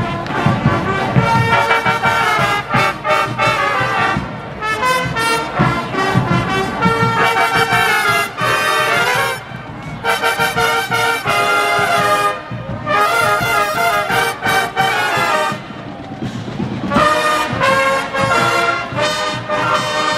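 Marching band trumpet section playing a loud brass tune together, in phrases broken by short breaths.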